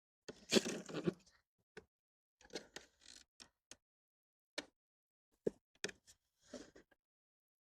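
Plastic parts of a cordless lawnmower being handled: a brief scraping rustle about half a second in, then scattered light clicks and knocks.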